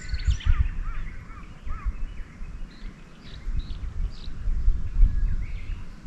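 Wild birds chirping and calling, with a quick run of short arching chirps in the first two seconds and scattered calls after that, over the uneven low rumble of wind on the microphone.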